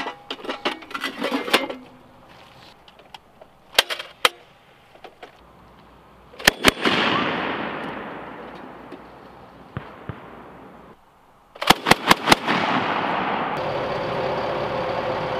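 Clinking and rattling of 40 mm grenade rounds handled in a metal ammo can. Then a short three-round burst from an MK19 grenade launcher, its report echoing and fading over several seconds, and later a faster burst of about five heavy automatic-weapon shots, also echoing. A steady engine-like hum follows the second burst.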